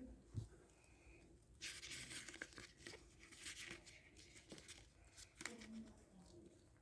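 Packaging being torn open and crinkled by hand, a stretch of crackly tearing and rustling through the middle, after a soft thump near the start.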